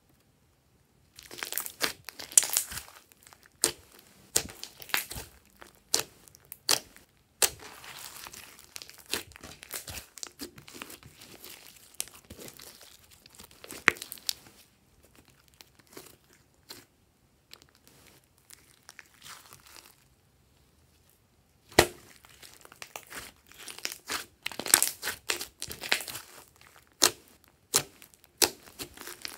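Glossy slime mixed with clay and glitter being stretched, folded and pressed by hand, giving irregular sticky crackles and sharp popping clicks as trapped air breaks out. It starts about a second in, thins out for a moment past the middle, then turns dense again near the end.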